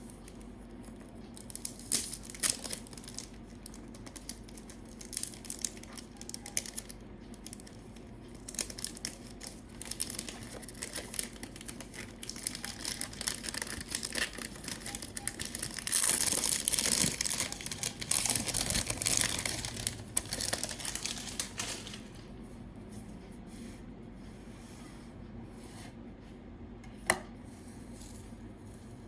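Perfume box packaging being torn open and crinkled, with irregular crackles building to a dense stretch of tearing and rustling for about six seconds past the middle. A single sharp click comes near the end.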